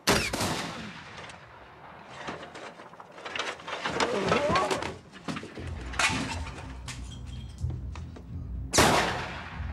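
Slate roof tiles cracking and clattering as they are forced and scrambled over, with a sudden loud crash at the start and another near the end, over music. A low steady rumble comes in about halfway.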